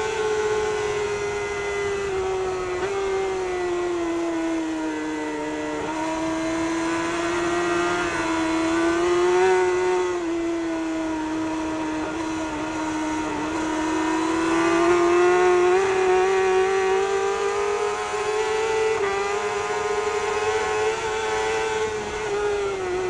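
Kawasaki superbike's inline-four engine at high revs, heard onboard at racing speed. Its high note sinks and climbs again twice as the rider works the throttle through the bends, over a steady rush of noise.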